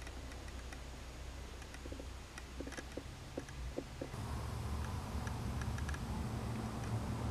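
Low steady hum with faint, scattered light clicks and ticks; about four seconds in the hum grows slightly louder.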